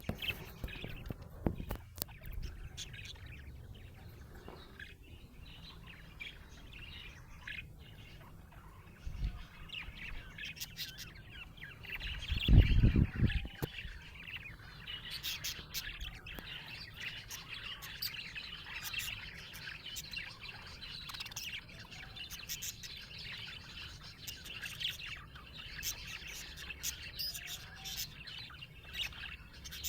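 Budgerigars chirping in continuous busy chatter, with many short sharp clicks. About halfway through, a loud low rumble lasting about a second.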